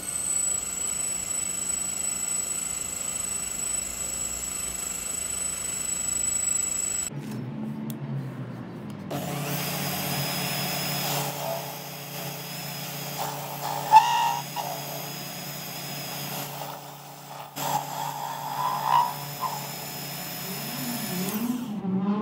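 Small Craftsman (Sherline-built) benchtop precision lathe running, its motor whining steadily as the tool turns a metal bar. About seven seconds in the sound changes to a lower steady hum, with a couple of brief louder scraping spikes later on.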